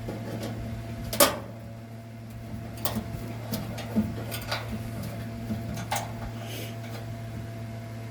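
A screw being fastened into the dryer's sheet-metal housing during a heating-element replacement: scattered sharp metal clicks and taps of the tool and screw, the loudest about a second in. A steady low hum runs underneath.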